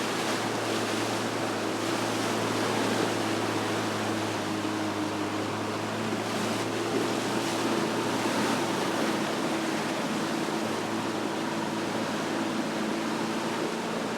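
Boat engine running with a steady, even drone over a constant rush of water and wind noise.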